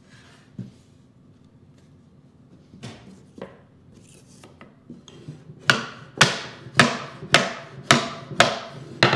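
Dovetail joints of a ready-to-assemble wooden cabinet drawer being tapped together: a couple of light knocks, then, past halfway, about seven sharp taps at a steady pace of about two a second.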